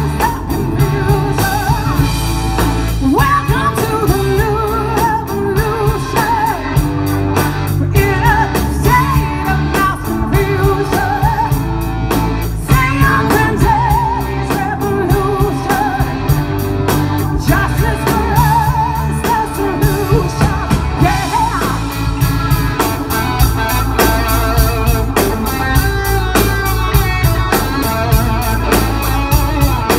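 Blues-rock band playing live through a PA: electric guitars over a drum kit, bass and organ, with a woman's voice singing.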